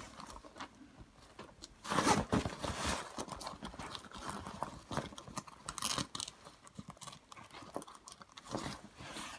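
Clear plastic sheeting crinkling and rustling in irregular bursts as it is handled and stretched over a stroller canopy's window opening, loudest about two seconds in.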